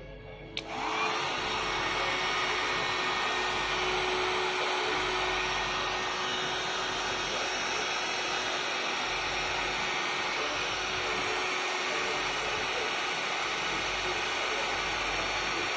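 Panasonic hair dryer switched on with a click about half a second in, then running steadily: an even rush of blown air with a faint steady motor hum.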